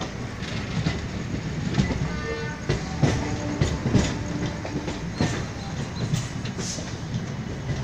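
A train running along the track, heard from aboard, its wheels clacking irregularly over rail joints and points.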